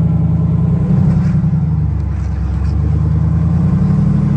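Lifted Jeep Wrangler's engine running at low revs with a steady deep rumble as it crawls up a rock slab.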